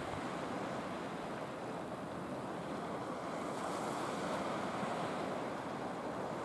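Steady rush of sea surf washing on the shore, with wind buffeting the microphone.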